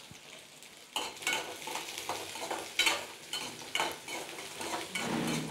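A metal spoon scraping and stirring shallots and onion pieces sautéing in hot oil in a metal kadai, with a faint sizzle. The strokes start about a second in and come every half second or so.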